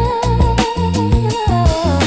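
Soulful house music: a wavering sung or held melody line over deep bass and a steady drum beat.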